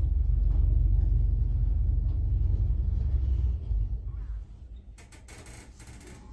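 Otis 2000 lift car travelling down the shaft, a steady low rumble heard from inside the car, which fades away about four seconds in as the car slows to stop; faint clicks follow near the end.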